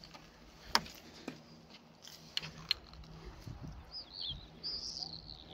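A few sharp clicks in the first three seconds, then a small bird calling with short, high chirps that bend down in pitch, from about four seconds in.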